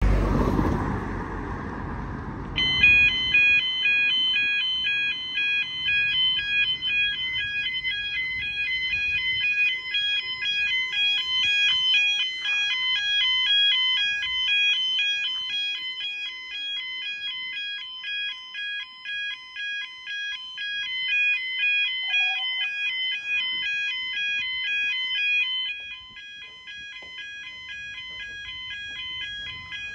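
Level crossing audible warning alarm sounding a rapid two-tone electronic warble, starting about three seconds in after a brief low rumble and sounding on steadily: the crossing is warning road users that a train is approaching.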